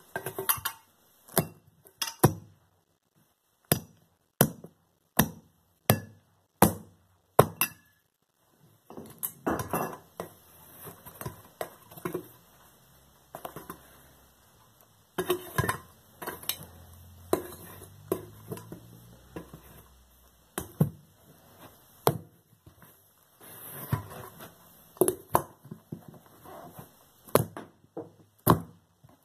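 Boot heels striking and stamping on a thin silver-plated teapot, denting and flattening it: sharp metallic knocks, about one a second at first, then from about eight seconds in a busier clatter of knocks and scraping.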